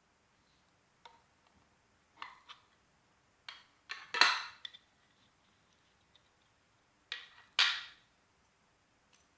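A series of sharp clinks and knocks of hard objects, irregularly spaced. The loudest comes about four seconds in and rings briefly; another pair comes near the end.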